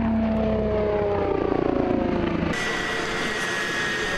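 Eurocopter X3 hybrid helicopter passing by at high speed, the pitch of its rotor, propellers and engines falling as it goes past. About two-thirds of the way through, the sound switches to the X3 running on the ground, with a steady high turbine whine.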